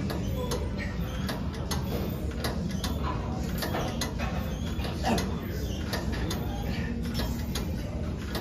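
Gym equipment: frequent short metallic clicks and light clanks, two or three a second at uneven spacing, over a steady low hum.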